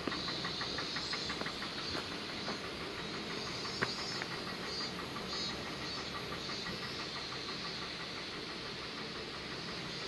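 Steady rushing, hissing outdoor noise, with a high-pitched buzz that pulses on and off about twice a second.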